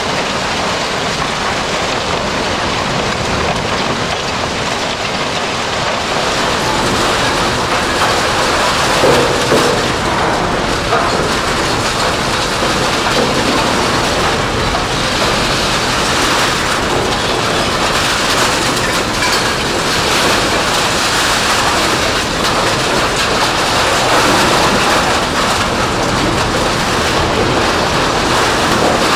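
Scrap metal shredding plant running: a loud, steady din of shredded metal rattling along conveyors and down chutes, with no break.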